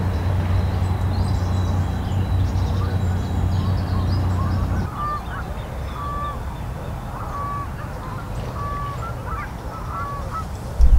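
Geese honking, a run of short calls about once a second through the second half, with small birds chirping faintly. A steady low hum fills the first five seconds and cuts off when the shot changes.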